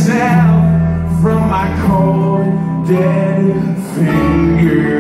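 A man singing while strumming chords on an acoustic guitar: a live song performance with held sung notes over the guitar.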